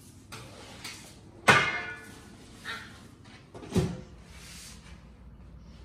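Kitchen handling clatter: a few light knocks, a loud clink with a brief ringing tail about a second and a half in, like a dish or bowl being set down, and a thump near four seconds as the phone camera is picked up and moved.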